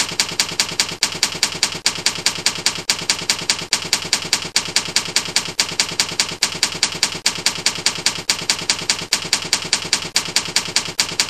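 Rapid, even mechanical clicking, about six clicks a second with a short break roughly every second.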